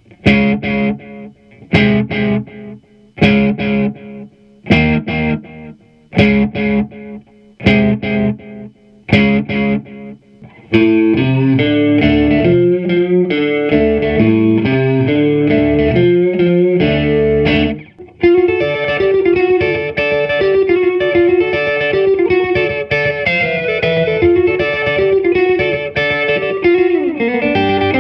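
Distorted electric guitar played through an EVH 5150 III LBX-S amp head with an Echoplex delay in its effects loop, into Celestion G12T-75 speakers. For about the first ten seconds it plays short chord stabs, two close together every second and a half or so, each dying away; then it goes into continuous riffing, stops briefly at about eighteen seconds, and carries on with a fast lead line.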